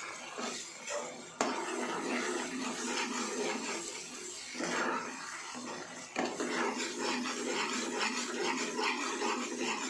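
Metal spoon stirring and scraping a thick, crumbly paneer mixture around a nonstick frying pan, in continuous strokes with a sharp click about a second and a half in.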